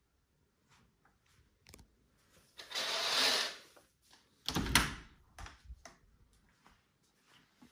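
A door being opened: a swish about three seconds in, then a sharp clunk of the handle and latch about a second and a half later, followed by a few lighter knocks.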